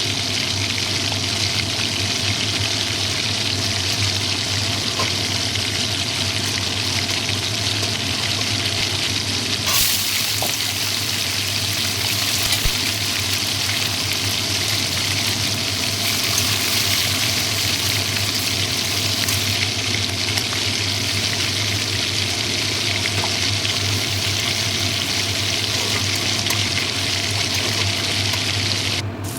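Food sizzling in hot oil in a pan, a steady hiss that cuts off abruptly near the end, with a brief clink about ten seconds in.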